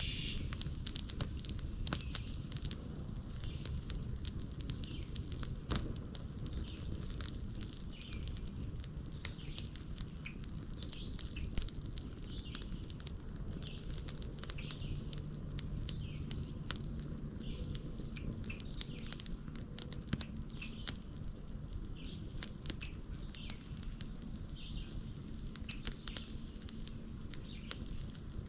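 Wood fire crackling, with dense irregular clicks throughout, while birds give short chirping calls every second or two.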